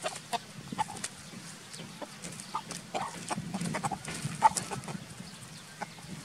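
Rooster clucking in short, scattered calls, among scuffling and sharp clicks; the loudest click comes just after four seconds in.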